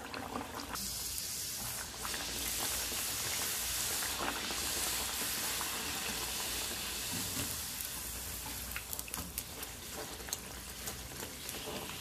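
Beetroot puri deep-frying in hot oil, sizzling steadily while a wire spatula presses it down in the wok. The sizzle is loudest in the first half and eases a little later, with a few faint clicks near the end.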